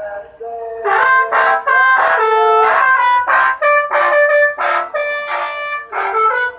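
Telolet bus horn: a set of musical air horns playing a quick tune of short, changing notes, several tones sounding together.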